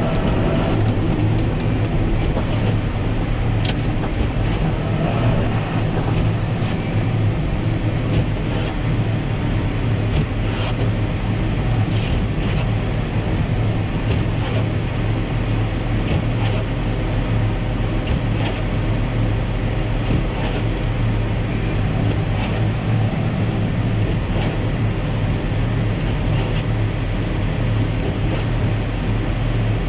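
John Deere 7530 tractor's six-cylinder diesel engine running steadily, heard from inside the cab as an even low hum, with a few faint ticks now and then.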